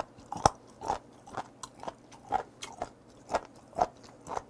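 Close-miked chewing of a mouthful of raw horned turban sea snail, a short wet click about twice a second.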